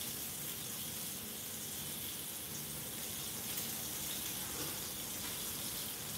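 Salmon steak frying in oil in a cast-iron skillet: a steady, even sizzle.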